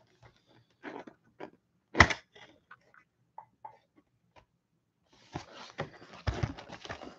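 Cardboard trading-card box being handled and its lid flap pulled open: light taps and clicks with one sharp snap about two seconds in. From about five seconds a dense crinkling and rustling as the cello-wrapped packs inside are uncovered and touched.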